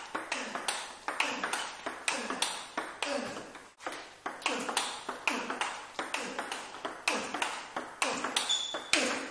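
Table tennis ball being played back and forth: sharp clicks of the ball off a bat fitted with Avalox Sogno hard rubber on a carbon blade and off the table, about three a second. A brief high squeak near the end.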